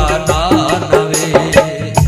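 Bhajan accompaniment: harmonium playing a held, ornamented melody over a dholak whose low strokes slide down in pitch.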